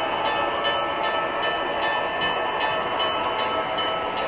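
MTH Premier O gauge Seaboard Centipede diesel locomotives running past on the model layout. They make a steady rolling and running noise with a light, regular ticking about two or three times a second.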